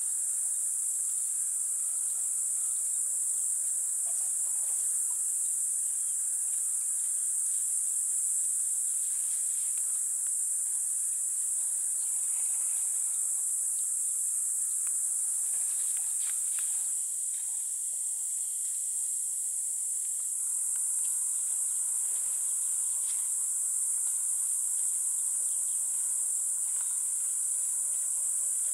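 Insects droning in a steady, unbroken high-pitched chorus.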